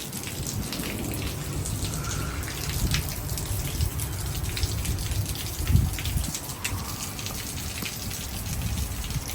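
Heavy thunderstorm rain falling, with many sharp drops striking close by, and gusting wind rumbling against the microphone, strongest about six seconds in.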